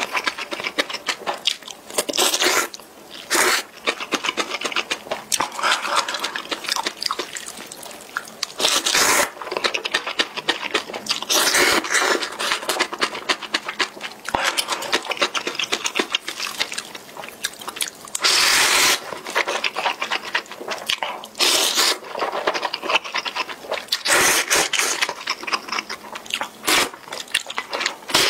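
Close-miked slurping and wet chewing of instant ramen noodles, with a long slurp every few seconds and small mouth clicks in between.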